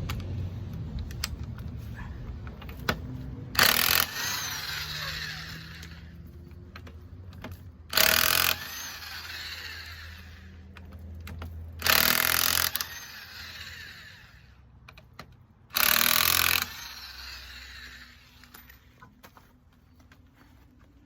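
Impact wrench loosening a wheel's lug nuts: four short loud bursts about four seconds apart, each followed by a fainter sound that fades over a couple of seconds.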